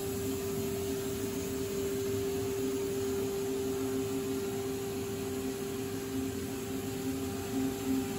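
Goldmann HTS automatic sandblasting cabinet running: a steady hiss of compressed-air blasting with a steady machine hum under it.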